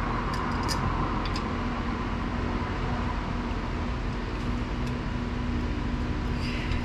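Steady mechanical hum with a few faint clicks about a second in.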